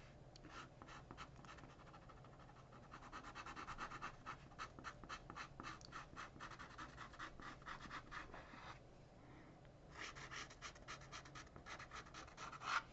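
Fine-tip ink pen scratching on paper in quick, short hatching strokes, faint, pausing for about a second near two-thirds of the way through before starting again.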